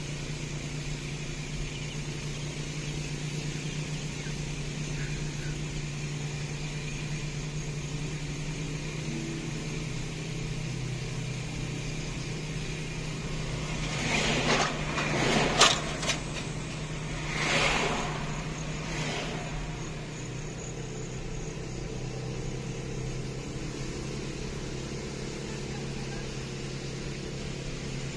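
Steady low drone of a car rolling along a road under tow, heard from inside the cabin. About halfway through, a few seconds of louder rushing noise come as an oncoming vehicle passes.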